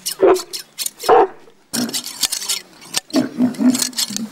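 A camel groaning twice in short bellows while it is being sheared, with the quick snipping of hand shears cutting through its wool.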